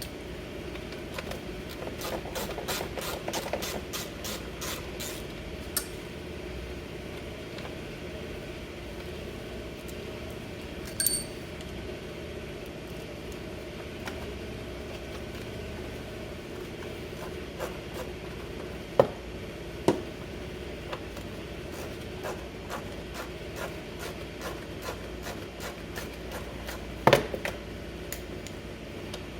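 Hand tools working on a scooter's engine casing: runs of rapid, even clicks, a ringing metal clink about a third of the way in, and several sharp knocks later on. A steady low hum runs underneath.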